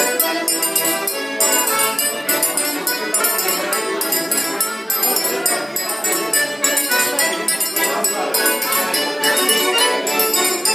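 Two accordions playing a Portuguese folk dance tune, a balso rasteiro, with a metal triangle (ferrinhos) struck in a steady beat over the top.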